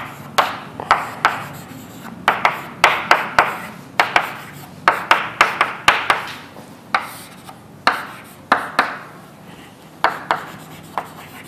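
Writing on a board: an irregular run of short taps and scrapes as the letters and formulas are drawn, clustered in quick groups with brief pauses between.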